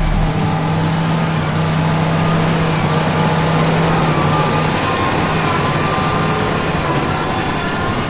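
A John Deere tractor pulling a CLAAS Quadrant 5300 large square baler while baling straw: a steady engine hum over a dense noise from the baler's machinery. The low engine tone fades about halfway through.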